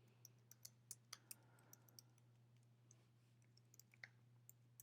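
Faint scattered clicks of a computer keyboard and mouse, several close together in the first second and a half and a few more later, over a low steady hum.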